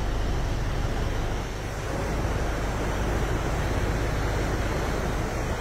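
Steady rushing noise of fast-flowing floodwater, mixed with wind buffeting the microphone.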